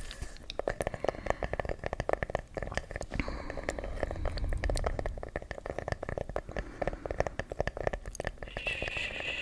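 ASMR trigger sounds close to the microphone: dense, irregular crinkling and crackling clicks as an object is handled.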